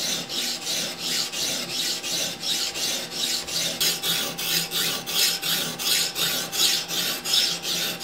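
A 220-grit sharpening stone on an Edge Pro guide rod is stroked rapidly back and forth along a poultry-shear blade clamped in the scissor attachment. The result is a steady, even rasping scrape, about two or three strokes a second, as the coarse stone grinds metal off a dull spot along the edge.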